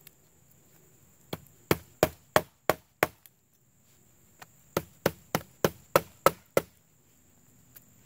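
Small Victorinox Classic keychain knife's blade chopping into a freshly cut green stick: two runs of sharp chopping strikes, about three a second, with a short pause between the runs.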